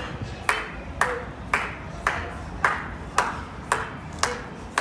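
A steady percussive beat of sharp, ringing strokes, about two a second, evenly spaced.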